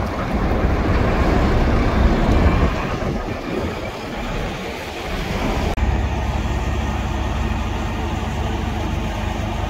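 Heavy diesel truck engine noise, a low rumble with tyre and road noise, shifting partway through to a steadier low engine rumble.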